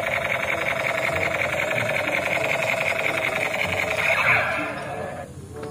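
Battery-operated light-up toy shotgun playing its electronic firing sound effect: a continuous, fast buzzing rattle with a falling sweep about four seconds in, cutting off suddenly about a second later.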